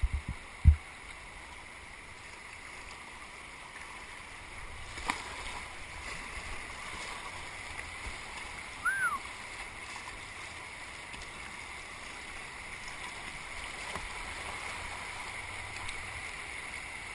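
Rushing, flood-swollen river water running through rapids, a steady hiss around the kayak. There is a sharp knock under a second in and a short squeak about halfway.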